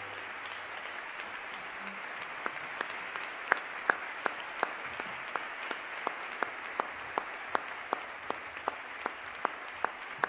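Audience applauding, with one pair of hands close by clapping sharply and evenly at about three claps a second from a couple of seconds in.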